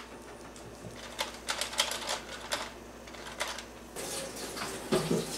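Irregular light plastic clicks and small knocks from a Nerf Maverick toy revolver being handled and loaded.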